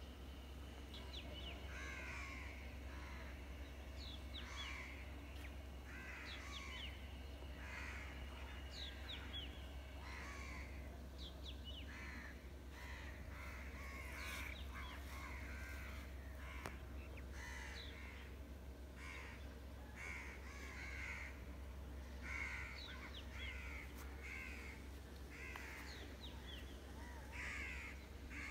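Crows cawing repeatedly, calls overlapping about once a second, over a faint steady low rumble.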